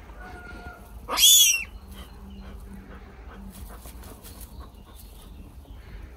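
Very young lynx kitten giving one loud, high cry about a second in, its pitch sliding up and then back down.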